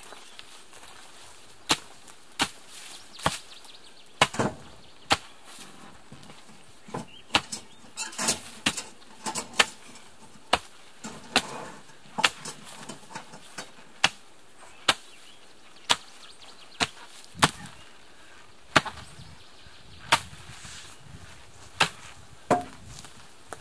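A mattock is swung repeatedly into rooty, brushy ground: sharp strikes of the blade biting into soil and roots, roughly one a second, with a few quicker pairs and short pauses.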